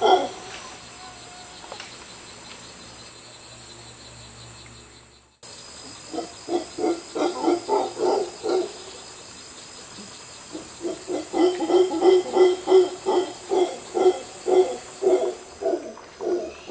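Mantled howler monkeys calling in two bouts of rhythmic pulsed calls, about three a second, over a steady high hiss. The first few seconds hold only the hiss.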